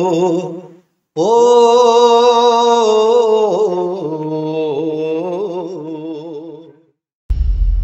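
A solo voice singing a slow chant, holding long notes with wavering ornaments. One phrase ends just under a second in and a long held phrase follows until about seven seconds. Near the end a loud drum hit comes in.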